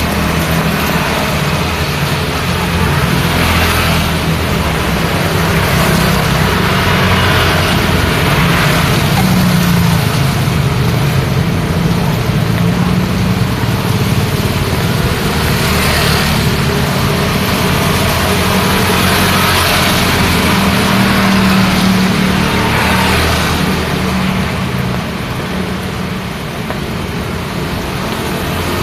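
Road traffic in the rain: a steady hiss of rain and wet road noise with engines of passing vehicles, several of them swelling and fading one after another, and a low engine hum underneath.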